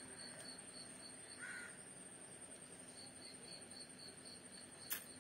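Faint insects chirping in a quiet room: a steady high trill with a pulsing chirp several times a second that comes and goes, a short squeak about a second and a half in, and a single click near the end.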